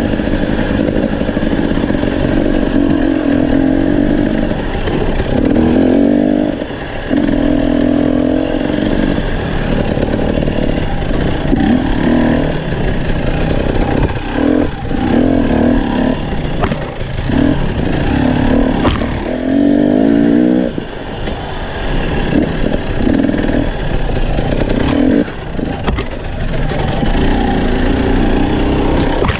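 Husqvarna TE250i two-stroke dirt bike engine revving up and down under constant throttle changes on rocky single track. The pitch rises and falls repeatedly, with short drops in revs every few seconds.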